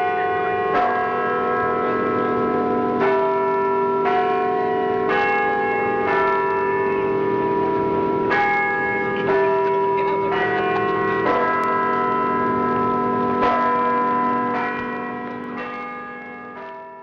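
Bells ringing a slow, uneven sequence of strikes at different pitches, about one a second, each ringing on under the next; the ringing fades out near the end.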